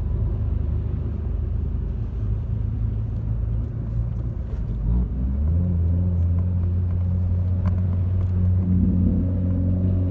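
Corsa's engine and road noise heard from inside the cabin while driving. The engine note rises about halfway through, then holds steady and a little louder.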